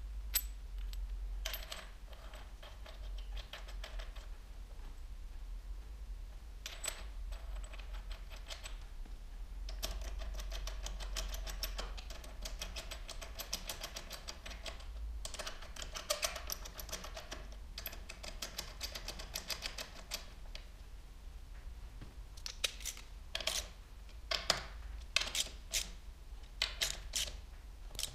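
Socket ratchet clicking as the Torx bolts of an aluminium handlebar clamp are driven in, in long runs of rapid clicks, with sharper separate metal clicks near the end.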